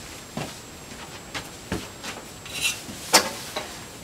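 Footsteps scuffing on a gritty concrete floor, then scattered knocks and scrapes as screed guide pipes are set in place on the floor, the sharpest knock about three seconds in.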